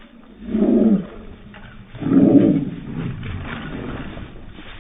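Playing dogs barking twice, the first about half a second in and the louder second about two seconds in, each slowed down with slow-motion footage so it comes out deep and drawn out. A lower, quieter rumble of dog noise follows.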